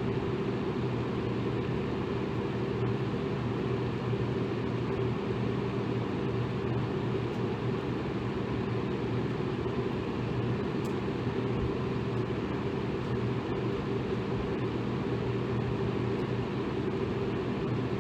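Electric fan running steadily: a constant whooshing rush of air with a low hum under it.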